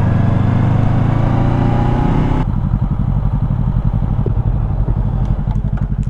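Motorcycle engine running with its revs easing down, under a layer of wind and road noise. About two and a half seconds in, the higher noise cuts off abruptly and the engine carries on as a steady, low, even putter.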